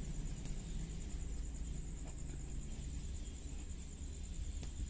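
Faint strokes of a felt-tip marker writing on paper, over a low steady hum and a steady, evenly pulsing high trill typical of a cricket.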